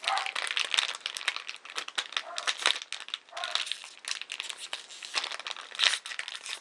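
Crinkly gift packaging rustling and crackling in the hands as small items are unwrapped and sorted, with an irregular run of crackles throughout.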